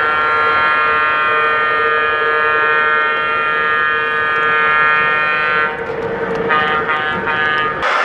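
Model train locomotive's sound system sounding its horn: one long blast of about six seconds, then a few short toots. A running rumble lies under it and cuts off suddenly near the end.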